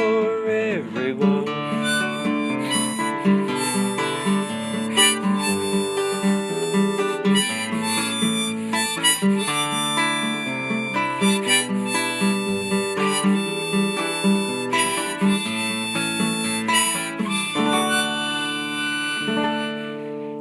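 Instrumental outro of a folk song: harmonica playing a melody over rhythmically strummed acoustic guitar. It settles into a long held chord near the end.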